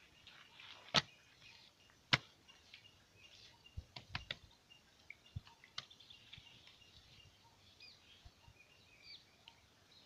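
Sharp wooden knocks of a hand-moulding brick mould being set down and handled on the ground, two loud ones about one and two seconds in, then a cluster of lighter knocks near the middle. Birds chirp faintly in the background.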